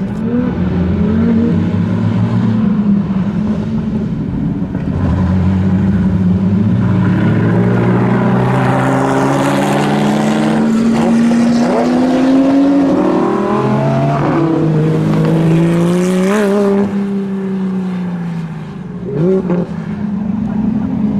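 Ferrari F40's twin-turbo V8 pulling away under acceleration, its note climbing in pitch, dropping back at each upshift and climbing again several times.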